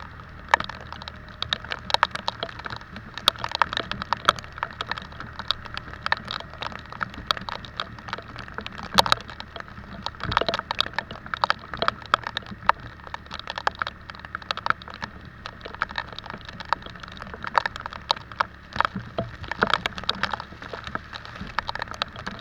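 Raindrops striking the microphone in quick, irregular sharp clicks and pops while riding in the rain, over a low steady hum.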